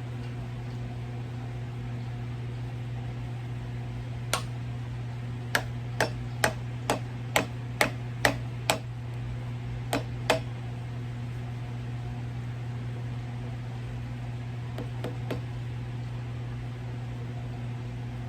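A run of sharp knocks, roughly two a second, starting about four seconds in, with a couple more about ten seconds in and a few faint ones later, over the steady low hum of a portable evaporative cooler's fan.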